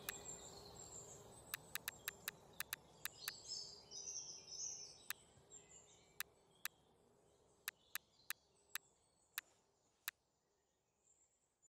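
Faint background birdsong, with insects, fading out. Over it come about twenty sharp mouse clicks, in quick runs during the first few seconds, then more spaced out.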